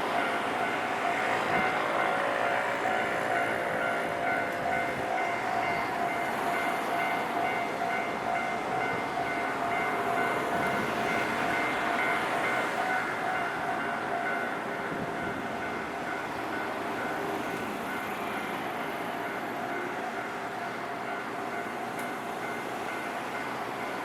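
Japanese level-crossing warning bell ringing steadily as an electric train on the Wakayama Electric Railway Kishigawa Line passes. The train's rumble is loudest for the first half, then eases off while the bell keeps ringing.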